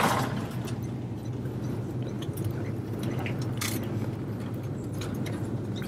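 Airliner cabin noise during the landing rollout: a steady low rumble of the aircraft running along the runway, with light clicking and rattling from the cabin. A sharp clatter sounds at the very start.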